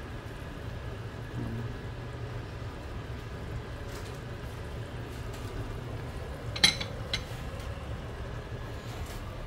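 Turnip curry simmering in a frying pan over a gas burner, with a steady low hum underneath, as the water is cooked off. A sharp clink about two-thirds of the way in, then a smaller one.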